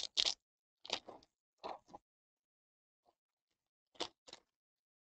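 Foil trading-card pack wrapper tearing and crinkling in short crackles, several in the first two seconds, then two more about four seconds in as the cards are pulled out.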